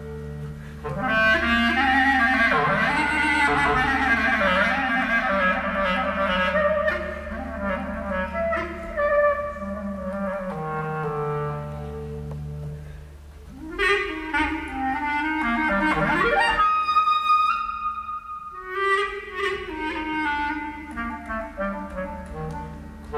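Klezmer clarinet playing a melody over bowed double bass. About two-thirds of the way through, the clarinet slides up in pitch several times, then holds a quieter high note before the tune resumes.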